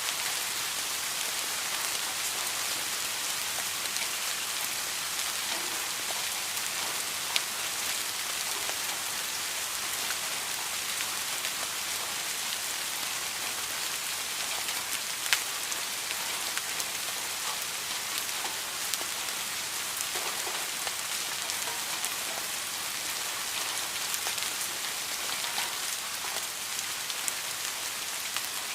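Steady rain falling, an even hiss with scattered sharp drop impacts, two of them louder about seven and fifteen seconds in.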